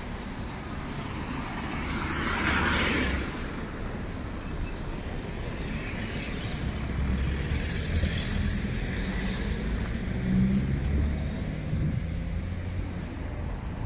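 City street traffic: a car passes about two to three seconds in, over a steady low rumble of vehicles. A heavier engine rumble swells and fades later on.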